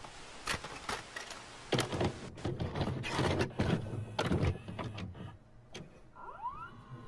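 Video cassette recorder mechanism sound effect: a series of mechanical clicks and clunks over whirring and crackle, with a few short rising tones about six seconds in.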